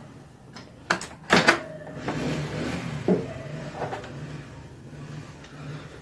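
Microwave oven door unlatched and pulled open: a sharp click about a second in, then a louder clunk. A little later comes a light knock and handling as a mug of heated water is lifted out.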